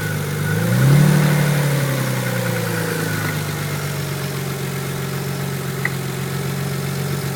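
Nissan 300ZX twin-turbo V6 running on a cold start, with a brief rise in revs about a second in before it settles back to a steady idle, and one sharp click near the end. This is the engine knock that comes on after the car has sat for a few days, alongside a known valve tick, and fades within a minute or so as it warms.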